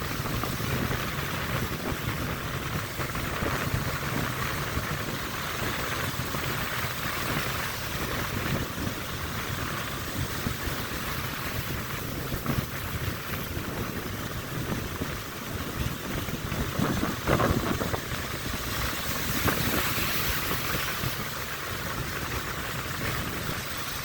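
Strong wind buffeting the microphone over the steady wash of breaking surf, with gusts swelling now and then.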